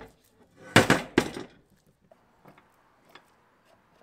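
Heavy cast-iron machine vise set down on a workbench: two loud thunks about a second in, less than half a second apart, then a few light clicks.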